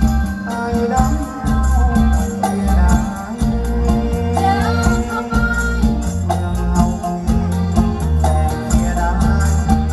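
Thai Song Dam (Tai Dam) folk dance music: a fast, steady beat of rattling percussion over a heavy bass, with a melody line above it.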